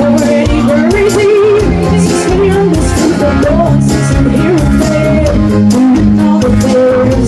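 A song playing: a singing voice with vibrato over guitar and a steady drum beat.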